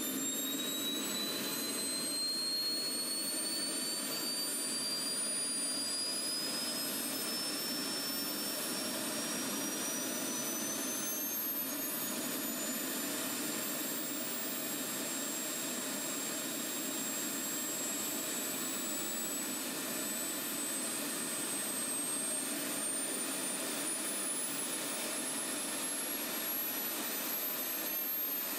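Frank Turbine model jet turbine running on a test stand: a steady rush of air with a high whine that rises in pitch over the first dozen seconds, holds steady at idle, then climbs again about two-thirds of the way in as the turbine accelerates and its thrust builds.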